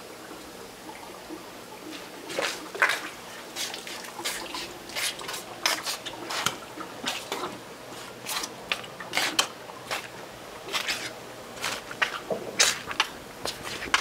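Seafood being handled wet: irregular sharp wet clicks, knocks and squelches with dripping water, starting about two seconds in.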